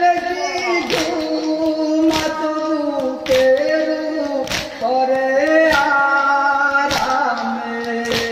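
A mourning lament (noha) sung by a lead voice in long held, gliding notes, over the mourners' rhythmic chest-beating (matam): a sharp slap about every second and a quarter, seven times.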